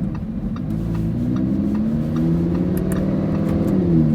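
Lamborghini Huracán's naturally aspirated 5.2-litre V10 accelerating, heard from inside the cabin with the engine behind the seats. Its pitch climbs steadily, then drops sharply near the end at a paddle upshift. A faint regular ticking, the indicator, runs under it.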